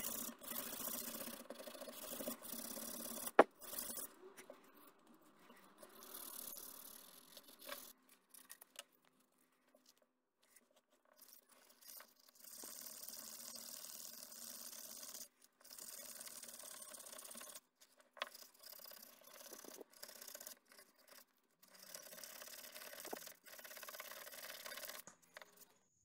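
Hand rubbing on small wooden pieces with a cloth and pad, in scratchy stretches of a second to a few seconds with short pauses between. One sharp knock comes about three and a half seconds in.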